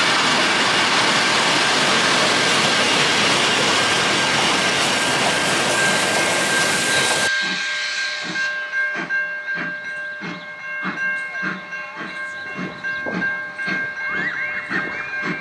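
A steam-hauled train of wooden carriages rolling past close by, a loud steady rushing noise. It cuts off about seven seconds in, and level crossing bells ring steadily, about two strokes a second, with the train in the distance.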